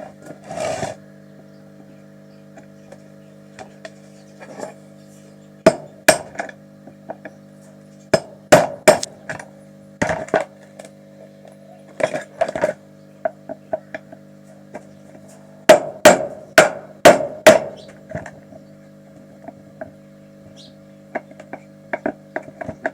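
Hammer blows during a washing machine pulsator bush replacement: sharp knocks in irregular groups with pauses between. The loudest run is four hard strikes about half a second apart, about two-thirds of the way through.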